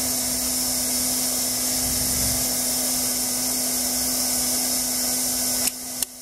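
Steady whirring hiss of a blower motor running, with a low steady hum beneath it. The sound drops out abruptly near the end, then fades back in.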